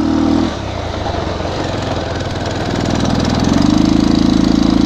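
Bajaj Pulsar 220 single-cylinder motorcycle engine running while riding. The engine note drops back about half a second in, then grows louder again about three and a half seconds in and holds steady.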